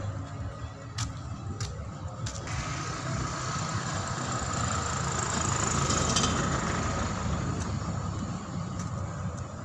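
A motor vehicle drives past on the street, its engine and tyre noise swelling to a peak about halfway through and then fading, over a steady low traffic rumble.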